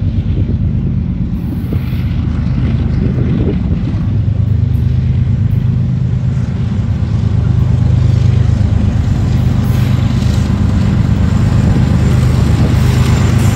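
CSX GE diesel-electric locomotive hauling a ballast train, its engine running with a steady low drone that grows louder as it approaches and passes. Its loaded hopper cars begin rolling by near the end.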